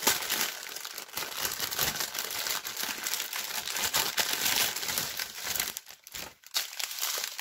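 Plastic packaging crinkling and rustling as small plastic bags of diamond-painting drills are pulled out of a larger plastic bag, easing off briefly about six seconds in.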